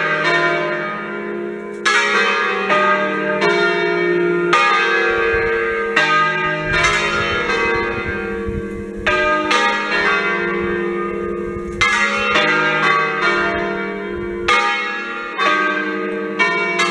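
Swinging church bells from a five-bell Achille Mazzola (1951) peal tuned in E-flat, ringing in an uneven run of strikes, about one or two a second. Each strike rings on over the next, leaving a continuous hum underneath.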